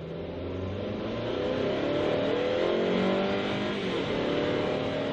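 Car engine running and revving, its pitch rising and falling.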